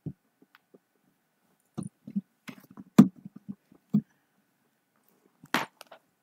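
A few scattered short clicks and knocks close to the microphone, the sharpest about three seconds in, with a brief rustle of noise near the end.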